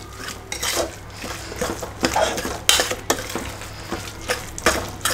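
Metal spoon stirring thick tomato masala in an open pressure cooker pot, with irregular scrapes and clinks of the spoon against the metal sides and bottom.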